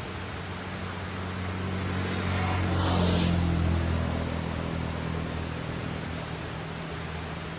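A motor vehicle driving past on the road, its engine and tyre noise swelling to a peak about three seconds in and then fading away, over the steady rush of a river.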